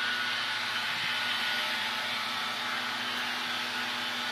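Steady mechanical whirring hum, with a faint steady tone in it, from the running machinery of a Ford F-250 refrigerated truck.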